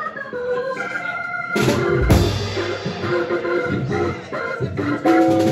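Live jazz combo playing: a hollow-body electric guitar plays lines over a drum kit and a sustained bass and keyboard backing. Loud drum-and-cymbal accents hit about one and a half and two seconds in, and again near the end.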